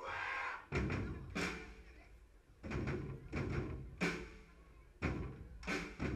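Brass band's bass drum and cymbals striking a run of about eight loud hits, unevenly spaced half a second to a second apart, each ringing away before the next.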